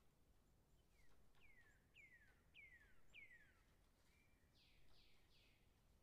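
Woodpecker calling faintly from a distance: a run of five falling whistled notes, evenly spaced, then a few harsher notes near the end.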